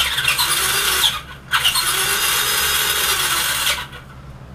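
Electric motor and drivetrain of an RC monster truck held off the ground, wheels spinning free under throttle in two bursts: a short one through the first second, then a longer one from about one and a half seconds until near the end. This is the throttle test of a newly bound Flysky GT3C receiver.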